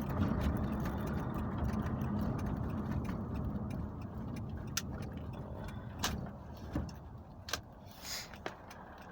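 Car cabin noise from driving: a steady low road and engine rumble that grows quieter through the second half as the car slows, with a few sharp clicks near the end.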